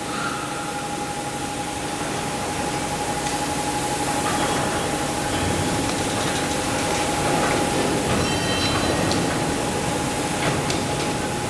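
Steel coil slitting machine running: a steady mechanical noise with a constant whine, and a few light clicks.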